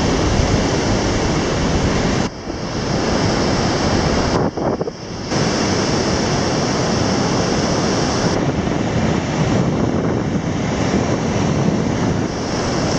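Ocean surf breaking on a sandy beach: a steady, loud rush of waves, mixed with wind buffeting the microphone, briefly dropping away a couple of times.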